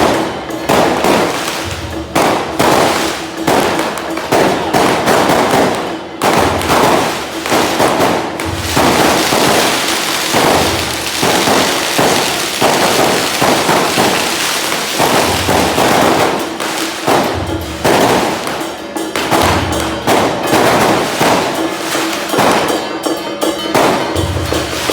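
A string of firecrackers going off in a dense, continuous crackle, thickest in the middle. Procession drum beats and a steady held note of music sound underneath.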